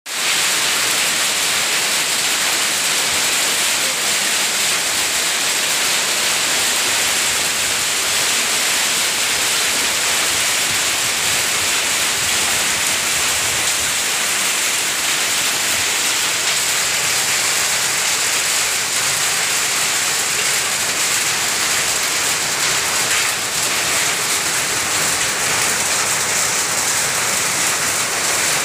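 Heavy rain mixed with hail pouring down onto a concrete yard and corrugated tin roofs: a dense, steady hiss and patter with no let-up.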